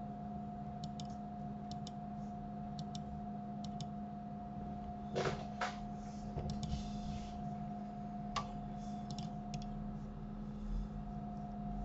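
Clicks of a computer mouse and keyboard: light paired clicks about once a second, a few louder clicks and a short rustle in the middle, over a steady electrical hum.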